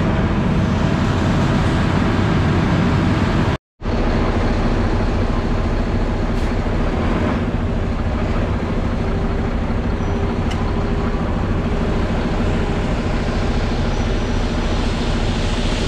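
Concrete mixer truck's diesel engine running steadily. The sound cuts out for a moment about four seconds in, then carries on the same.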